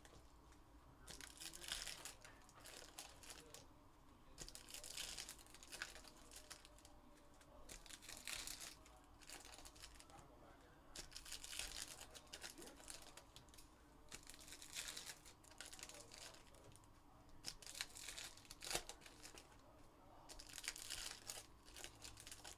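Foil wrappers of Panini Phoenix football card packs being torn open and crinkled by hand, in short crackling bursts every second or two.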